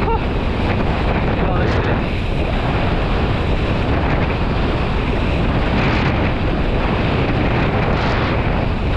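Strong wind buffeting an action camera's microphone as a kiteboard planes across the water, a steady rushing noise with the hiss of water under the board.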